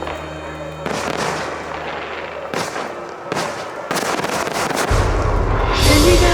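Aerial fireworks going off in a series of sharp bangs with crackle, over music; loud music with a heavy bass comes in about five seconds in.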